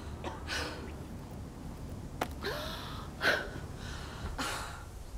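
A young woman gasping and breathing hard, about four heavy breaths, as she catches her breath bent over.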